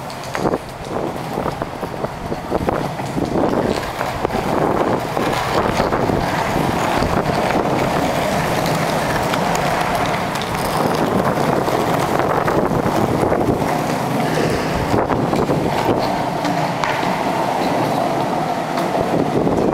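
Longboard wheels rolling over a concrete floor, a steady rumble that swells and eases, with wind on the microphone.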